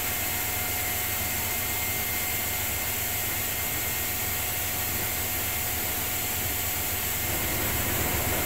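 Bosch WAE20462TR front-loading washing machine in its final spin, the drum turning at a constant speed with a steady motor whine over a low hum.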